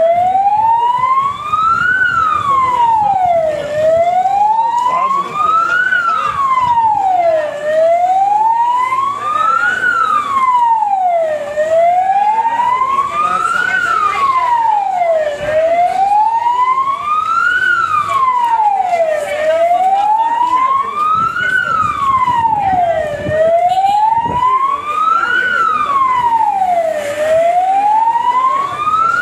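Siren of a Moroccan Auxiliary Forces van wailing, its pitch sliding steadily up and down with each rise and fall taking about four seconds.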